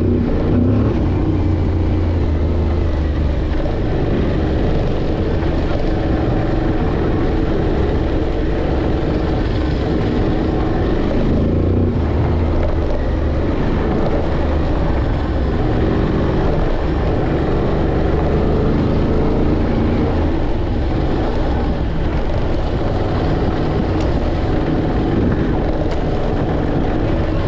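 Off-road motorcycle engine running steadily while riding.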